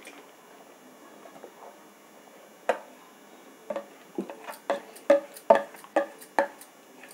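A metal spoon knocking and scraping against steel cookware as cooked dal is pushed out of a vessel into a cooking pot. After a quiet start come a string of short ringing clicks, about two a second, in the second half.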